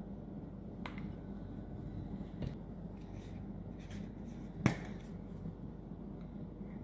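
Tableware handled on a table: a couple of faint clicks, then one sharp knock a little before five seconds in, over a low steady hum.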